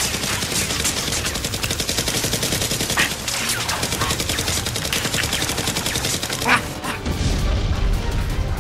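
Rapid, continuous automatic gunfire sound effects, then an explosion about six and a half seconds in, followed by a deep rumble to the end.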